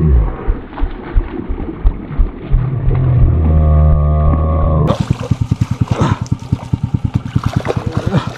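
Small boat motor running, a low pulsing hum. About five seconds in the sound changes abruptly to a rapid, even putter of about nine beats a second.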